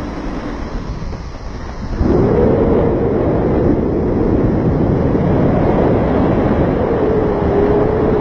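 A vehicle engine running under heavy rumbling noise. About two seconds in it gets louder, and its hum rises, dips, then holds steady.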